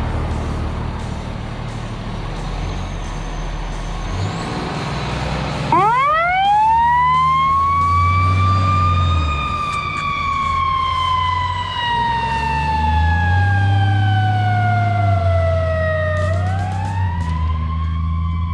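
2007 Spartan fire engine pulling away with its engine running. About six seconds in, its siren winds up sharply to a high pitch, then slowly falls over about ten seconds, and winds up again near the end.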